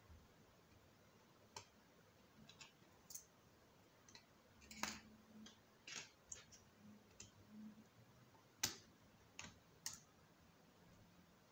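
Faint, scattered clicks and taps of small repair tools, a precision screwdriver, metal tweezers and plastic pry picks, against an opened smartphone and the work table. There are about a dozen at irregular intervals, and the sharpest comes about two-thirds of the way through.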